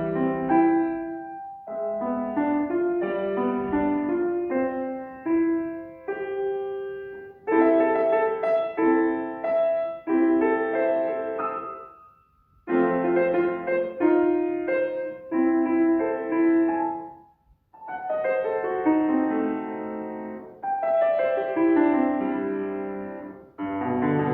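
Solo piano playing phrase by phrase, with short breaks about halfway through and again a few seconds later.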